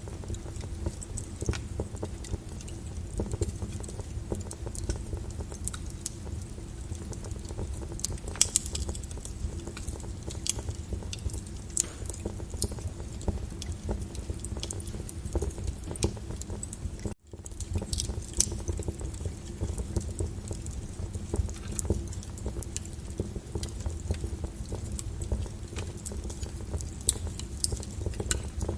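Fireplace crackling, with frequent sharp pops and snaps, over the steady hiss of rain on a window. The sound cuts out for a split second about seventeen seconds in.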